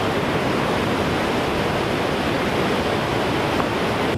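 Whitewater of a mountain trout stream cascading over boulders: a steady, unbroken rush of water.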